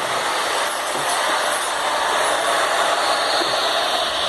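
Electric exhaust fan running, a steady rush of air.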